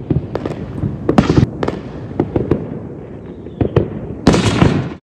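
Fireworks going off: a steady crackle with many sharp bangs scattered through it and a louder crackling burst near the end, then the sound cuts off abruptly.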